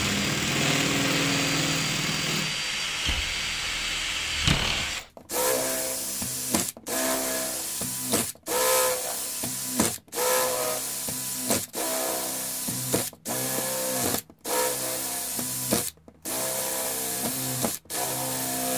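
Power drill with a 12 mm bit boring through the hollow PVC skins of a uPVC window frame to open a trickle-vent slot. One steady run of about five seconds, then a string of short bursts with brief stops between them, the motor speeding up at the start of each.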